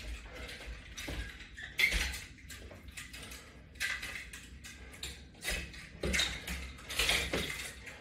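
Metal clips and hardware on wooden latch bars and resistance bands clinking and clattering as they are handled and hung on a wall rack, in several short bursts.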